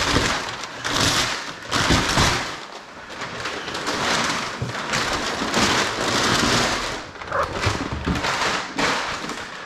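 Packing paper rustling and crinkling in repeated bursts as it is pulled away from a newly unboxed bumper.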